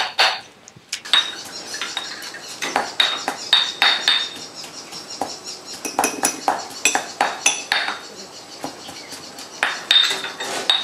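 Pestle pounding in a stone mortar in irregular knocks, about two to three a second, with sharp clinks among them, as fresh herbs are pounded into curry paste.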